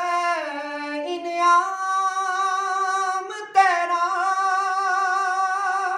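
A man singing an unaccompanied Urdu hamd, a devotional hymn to God, drawing out long wavering held notes. About three and a half seconds in he breaks off briefly and comes in again on a second long note.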